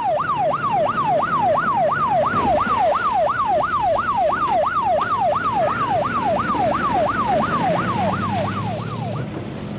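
Police car siren on a fast yelp, its pitch sweeping up and down about three times a second, over the low rumble of the car's engine and tyres. The siren stops shortly before the end.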